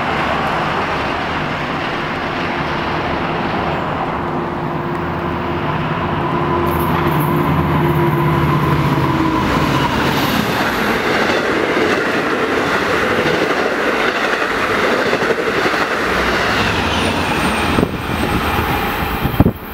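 EMD DM30AC dual-mode locomotive hauling Kawasaki C-3 bilevel coaches, passing at speed. For about the first ten seconds the locomotive's engine hums with steady tones, then the tones give way to a loud clattering rumble of the coaches' wheels on the rails, with a faint high squeal near the end.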